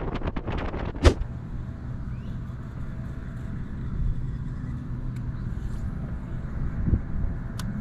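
Wind buffeting the microphone in gusts, cut off by a sharp click about a second in. After it comes a softer, steady low rumble of wind and water with a faint low hum and a few light clicks.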